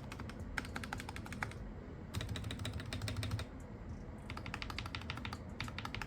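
Fast typing on a Hall effect (magnetic-switch) gaming keyboard, a rapid clatter of keystrokes. It comes in three runs, each about a second long, with short pauses between them.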